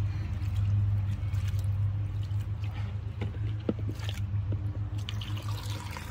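Gloved hands squishing and pushing soaked raw wool fleece down into a tub of water, with splashing and trickling as a garden hose fills the tub, over a steady low hum.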